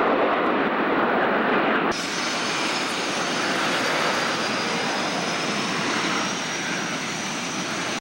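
Snowbirds' CT-114 Tutor jets: the rush of the smoking formation's turbojets passing overhead, cut off abruptly about two seconds in. The jets are then heard on the runway as a steadier engine rush with a thin high turbine whine slowly rising in pitch.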